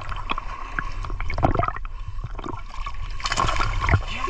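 Water sloshing and splashing around someone wading in a canal, with a few sharper irregular splashes over a steady low rumble.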